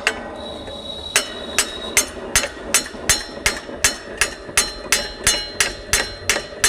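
Hammer tapping steadily, about two to three sharp metallic strikes a second with a ringing note, driving a thin blade in as a shim beside a stand fan motor's loose bearing to seat it tight.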